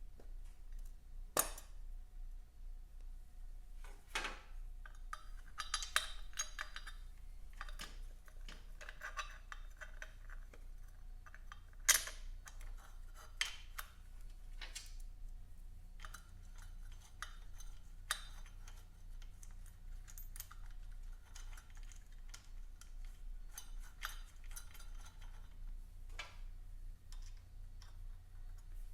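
Hand tools and metal parts clinking and knocking at irregular intervals while a motorcycle centre stand is fitted, with one sharp metallic clank about twelve seconds in.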